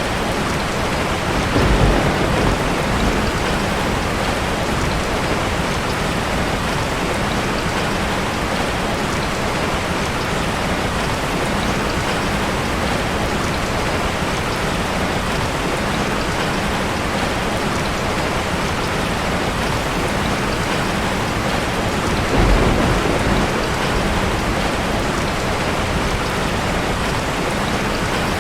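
Steady rain falling, with two short, low rumbles of thunder, about two seconds in and again near twenty-two seconds.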